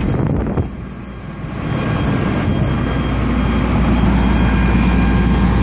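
A heavy engine running steadily with a low drone, briefly dropping in level with a click about half a second in before settling back.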